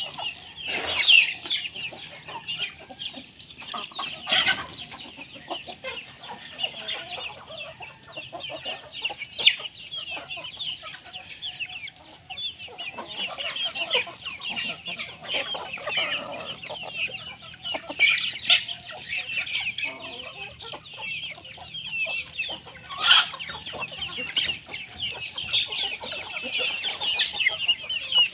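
Flock of native chickens clucking, with a constant busy high chirping from the young birds over it.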